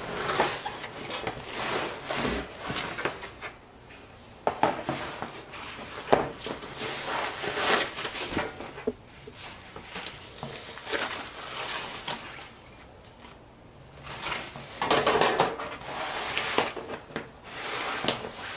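Unboxing noises: cardboard and a plastic protective sheet rustling and crinkling, with light metallic clanks and scrapes as a thin laser-cut sheet-metal sign shifts against the box, in an irregular run of handling sounds.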